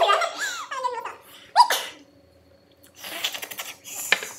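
A man and a woman laughing, with a short high-pitched squeal about one and a half seconds in. About three seconds in comes a loud hissing breath through bared teeth, a reaction to the burn of very spicy noodles.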